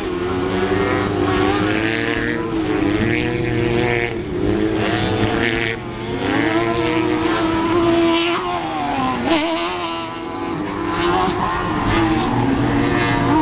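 Several off-road racing buggies' engines revving up and down as they race around a dirt short-course track, their pitches rising and falling with the throttle through the corners.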